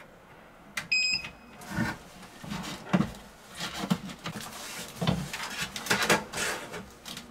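A short, high electronic beep about a second in, typical of a CCTV recorder powering up. Then the KOCOM KVR-AH800 recorder's case is handled, turned and set down on a wooden shelf: knocks, scrapes and the rustle of a padded jacket.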